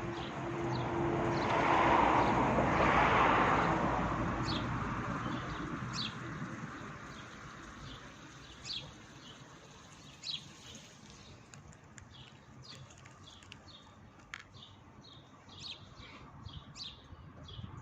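A passing vehicle swells and fades over the first few seconds. Small birds then chirp again and again, short high chirps that drop in pitch.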